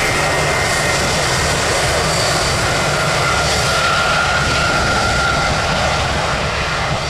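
Jet airliner's engines at takeoff power on departure: a steady, loud jet noise with a faint whine in the middle.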